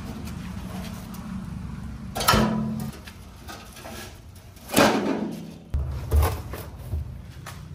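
Heavy steel trolley tailgate clanking as it is lifted off its hinges and set down on gravel: two loud clanks about two and a half seconds apart, then a few lighter knocks.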